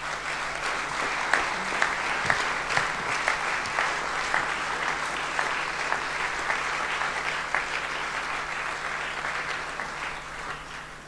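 Audience applause, many hands clapping, that dies away near the end.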